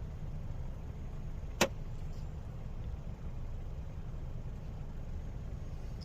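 Steady low rumble inside a parked Jeep's cabin, with one sharp click about a second and a half in.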